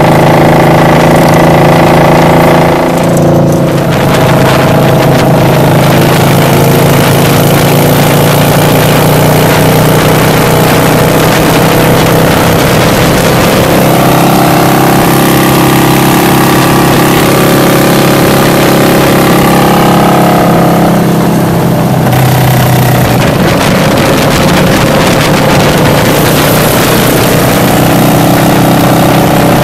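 Motorcycle engine running steadily at highway cruising speed, loud and close, with wind rushing over the microphone. The engine note shifts a few times, around three seconds in, near the middle and again a little later.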